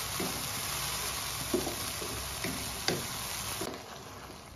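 Chicken, onion and tomato masala sizzling as it is fried (the bhuna stage) in a wok, with a wooden spatula stirring and scraping through it a few times. The sizzle gets softer near the end.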